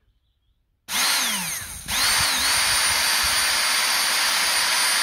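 Maktec MT064 cordless drill's small sealed brushed DC motor run straight off its 14.4 V NiCd battery with the trigger switch bypassed. About a second in it starts with a sudden high whine, cuts out briefly, then restarts and runs steadily. The motor is working, which leaves the faulty switch as the reason the drill would not go.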